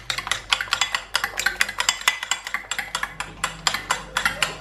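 A fork whisking eggs in a ceramic bowl, clinking against the bowl in quick, regular taps, several a second.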